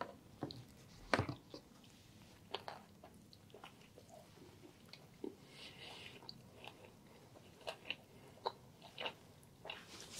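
Close-miked biting and chewing of a chicken and mushroom sandwich on a toasted, grill-marked sub roll: quiet, scattered crunches and clicks from the crust and filling, the sharpest about a second in.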